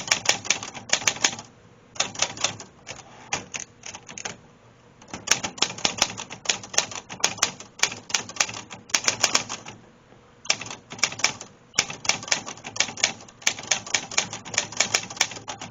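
Olivetti Underwood Model 21 manual portable typewriter being typed on: runs of quick key strikes broken by short pauses.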